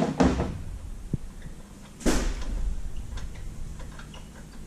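Ratchet wrench working a fastener on a pressure washer's Kohler engine: two heavier strokes about two seconds apart, then light ratchet clicks.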